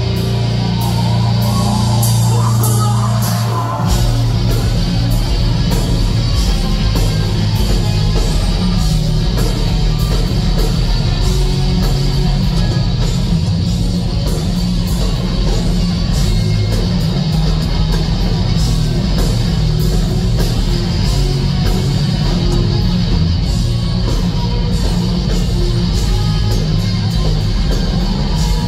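Hard rock band playing live, heard from the crowd: distorted electric guitars and bass over drums. It opens on a held chord that breaks off about four seconds in, then the full band comes in with a fast, steady drum beat.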